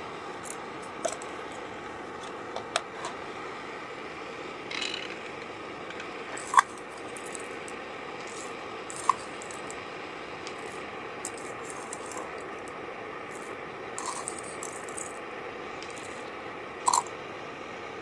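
Scattered clinks and clicks of small hard objects being handled, a few of them with a brief ring, over steady background noise.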